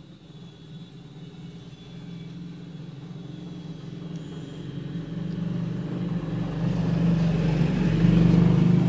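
A low, steady motor rumble that grows steadily louder, loudest near the end.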